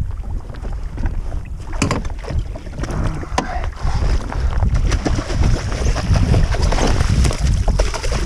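Wind buffeting the microphone and water sloshing against a jet ski at sea, with a dense low rumble and many irregular knocks and clicks, busiest after about two seconds.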